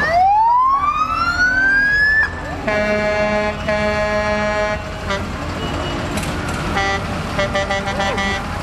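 Fire truck siren winding up once, rising in pitch for about two seconds and then cutting off, followed by two long horn blasts and more horn sounds near the end.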